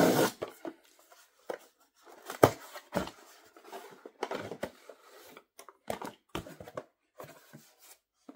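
Cardboard shipping box being handled and opened by hand: irregular rustling, scraping and knocking of cardboard, with a louder knock about two and a half seconds in.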